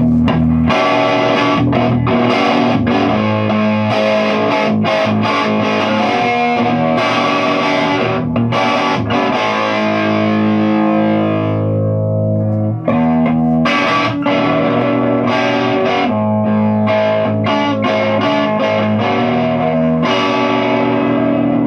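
Electric guitar played through a Fender 5F1 Tweed Champ kit amp with its volume at 10, strummed chords heavily overdriven, the extra gain coming from a cathode bypass capacitor added in the first stage. Near the middle a chord rings out and fades before the strumming starts again.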